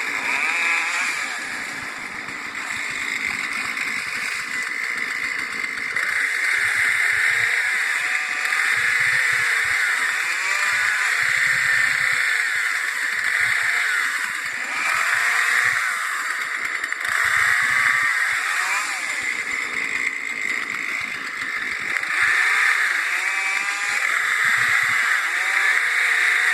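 Chainsaw running continuously, its engine pitch rising and falling as the throttle is worked while cutting a tree.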